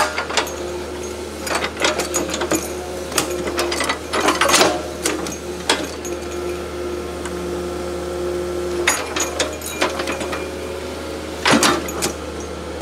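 Doosan wheeled excavator's diesel engine running with a steady hum, while its bucket scrapes and knocks against the earth and stones, in repeated clanks that are loudest around the middle and again near the end.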